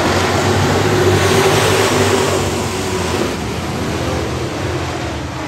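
A pack of dirt-track street stock race cars racing under power, their V8 engines accelerating together as the field takes the start. The sound is loudest about two seconds in, then eases as the cars pull away down the track.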